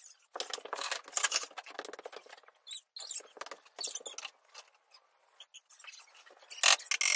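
Plywood flat-pack cat-house parts being handled on a wooden floor: irregular short bursts of light clatter, scraping and rustle, with a brief lull about five seconds in.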